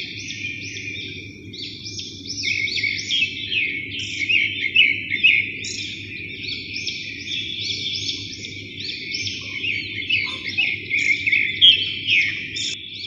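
Many small birds chirping all together in a dense, unbroken chorus of quick, overlapping chirps, over a low steady hum.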